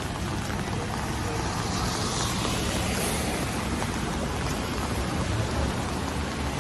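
Steady rain and city traffic on wet streets, with a low traffic rumble. A vehicle's tyre hiss on the wet road swells and fades about two to three seconds in.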